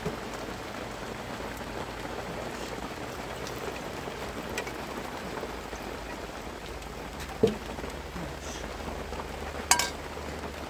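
Steady rain falling, with a dull knock about seven seconds in and a sharp click near the end.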